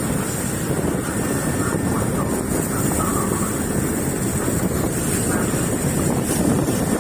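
Fishing boat's engine running steadily under way, with wind buffeting the microphone.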